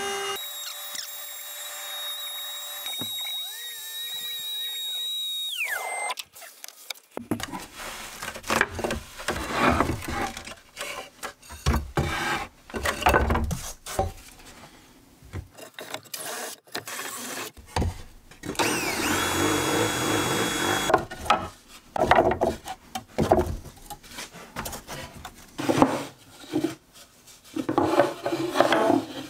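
Power-tool work on pine: a CNC machine's router runs with a steady high whine that falls away about six seconds in, then comes a stretch of short, stop-start bursts of tool noise that includes a cordless drill boring into the board.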